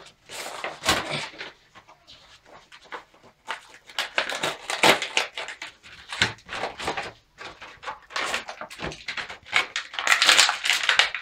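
Cardboard-and-plastic action-figure packaging being torn open and crinkled by hand: irregular crackles and rips, loudest near the end.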